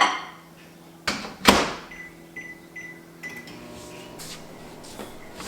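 Kitchen knocks and a door banging shut, then a run of short high electronic beeps from a microwave oven's keypad, over a low steady hum that changes about halfway through as the microwave starts running.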